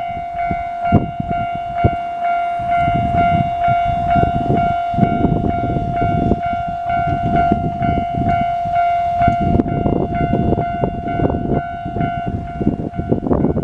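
Japanese railway level-crossing alarm ringing: a steady electronic tone pulsing at a regular beat, over the loud rumble and knocking wheel clatter of a train passing over the crossing.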